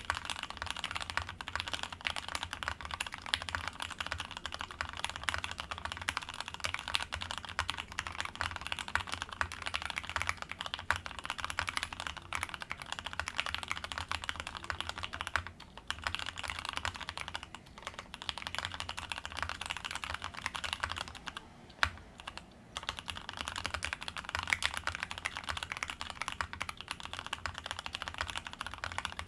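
Fast, continuous typing on a Matrix 2.0 custom mechanical keyboard with Tealios V2 67g linear switches: dense key clacks, pausing briefly about halfway through and again a few seconds later.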